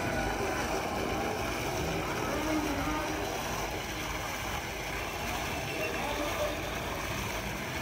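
Fountain jet splashing into its pool, a steady rush of water.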